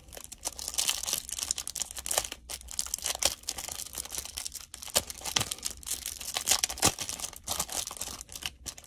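Clear cellophane wrapper of a basketball trading-card pack being torn open and crinkled by hand: a dense, irregular run of sharp crackles.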